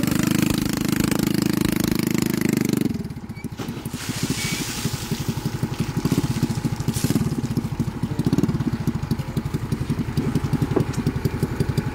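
A vehicle engine idling with a fast, even pulse. It is louder for the first three seconds, then drops and runs on more quietly.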